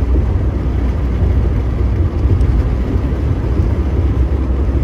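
Steady low rumble of a pickup truck driving at road speed: engine and tyre noise heard from inside the cab.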